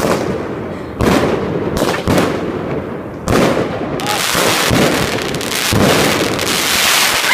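Fireworks going off: sharp bangs roughly once a second, then from about four seconds in a dense, continuous crackling of many small bursts.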